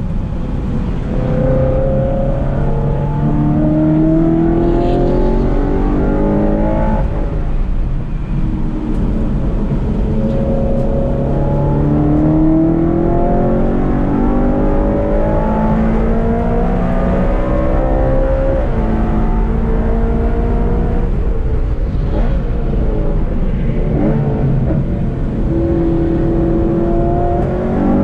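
BMW car engine, heard from inside the cabin, running hard on track. Its pitch climbs in long pulls and drops at each gear change, several times over.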